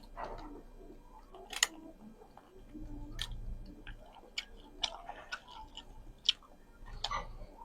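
Eating sounds close to the microphone: chewing with scattered sharp clicks and crunches, the loudest about one and a half seconds in and again near six seconds.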